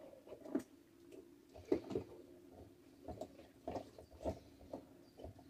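Faint, irregular knocks and rustles, loudest about two seconds in, over a low steady hum.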